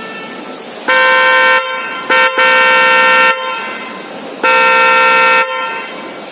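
K85 electric car horn sounding in four blasts with a steady, bright tone: one long blast about a second in, then a quick toot straight into a longer blast around two seconds in, and another long blast near the five-second mark.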